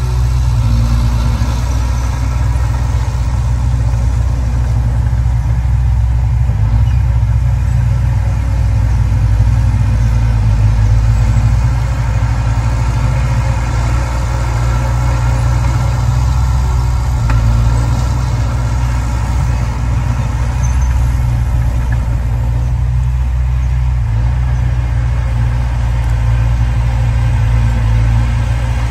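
Heavy earthmoving machine's diesel engine running steadily, a deep continuous drone that changes little.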